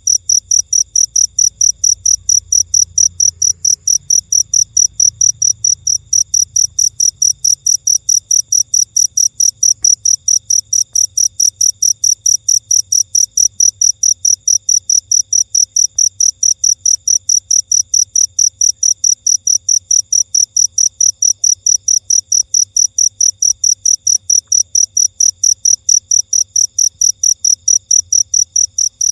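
A cricket chirping: loud, high-pitched chirps repeated evenly at about three a second, never changing pace.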